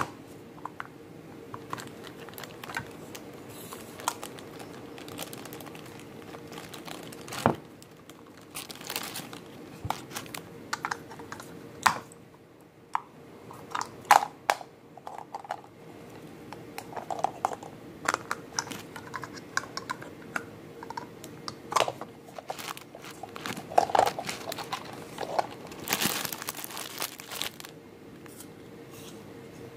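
Plastic packaging crinkling and a small plastic toy being handled, in irregular short clicks and rustles, with a longer rustle near the end.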